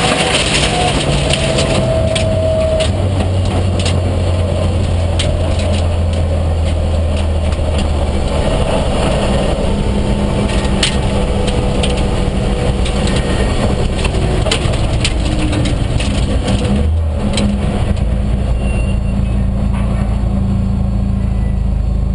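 Rally car engine and gravel noise heard from inside the cabin. The engine changes pitch and drops to lower revs while stones click against the car; about three quarters of the way through the gravel noise falls away and the engine settles to a low, steady run as the car slows after the stage finish.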